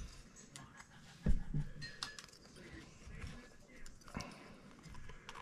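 Handling noise of steel slip-joint pliers and a RAM stick: light metallic clinks and small clicks, with one louder knock about a second in.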